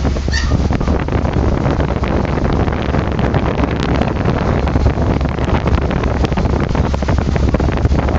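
Air from an electric fan blowing straight onto the microphone: a loud, buffeting wind rush, heaviest in the low rumble and full of small gusts.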